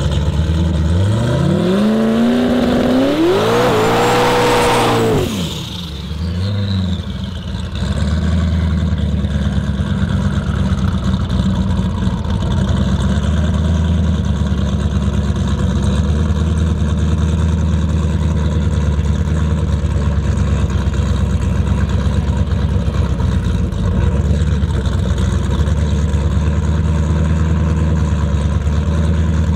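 Car engine revved hard in a burnout. The pitch climbs steeply to a held peak about four seconds in, with a burst of hiss as it tops out, dips briefly around six seconds, then holds at steady high revs while the rear tyres spin and pour out smoke. It starts rising again at the very end.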